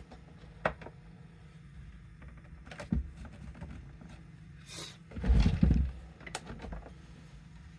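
Plastic handle being worked back onto a Nespresso coffee machine's body: a few light clicks and knocks, a short scrape near five seconds in, then a louder low bump just after.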